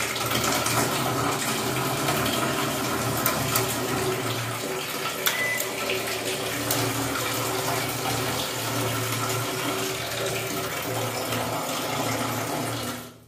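Water running steadily from an open tap, the flow that sets a Rinnai instant gas water heater firing as it is tested with its faulty overheat safety sensor jumpered out. The flow stops suddenly near the end.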